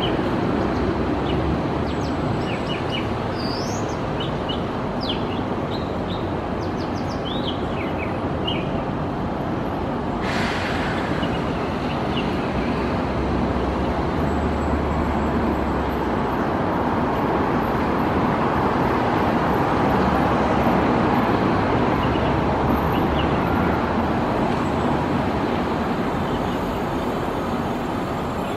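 Steady rumble of road traffic, with short high bird chirps and whistles scattered through the first ten seconds. A brighter hiss joins suddenly about ten seconds in.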